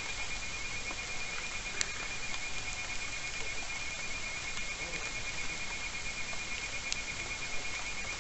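Forest ambience: an insect trilling continuously at one high pitch over a steady hiss, with two brief faint clicks.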